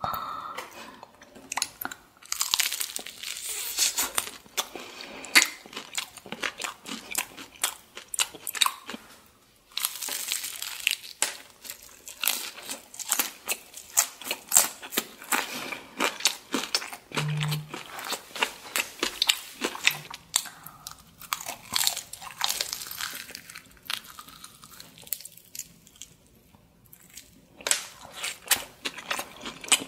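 Crunching bites and chewing of a BHC Bburinkle fried chicken drumstick, its crisp seasoned coating crackling in quick clicks, with a couple of brief lulls between bites.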